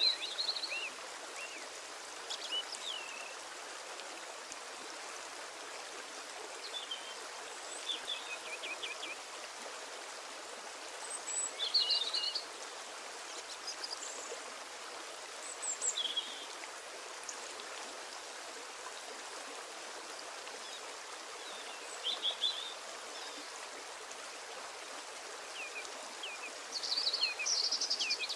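Short, high bird chirps every few seconds, clustered near the end, over a steady hiss.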